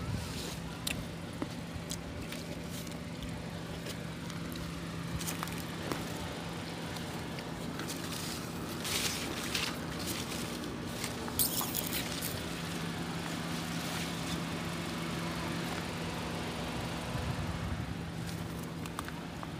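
Grapevine leaves rustling and brushing against the phone as it is pushed through the vines, with scattered clicks and a few louder rustles about halfway through, over a steady low hum.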